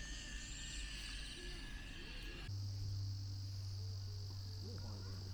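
Crickets and other insects chirping steadily in an outdoor chorus. About halfway through the sound changes abruptly to a steady low hum under a single steady high insect buzz.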